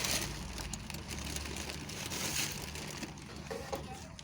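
Scraping and rustling handling noises, twice, with a few light clicks near the end, over a steady low hum.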